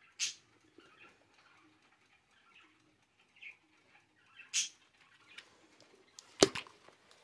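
Clear plastic travel alarm clock handled in the hand: two brief rustles, then a sharp plastic click with a low knock near the end as it is turned over.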